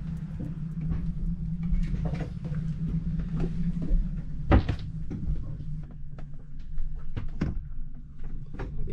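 Irregular knocks and clunks inside an aluminium catamaran's hull, with one loud bang about four and a half seconds in, over a steady low rumble. The boat is rolling at a rough, wind-exposed anchorage.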